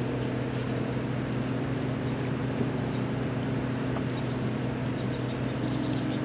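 A steady machine hum from a running motor, a low drone with a fainter higher tone held throughout, with a few light clicks of small parts being handled.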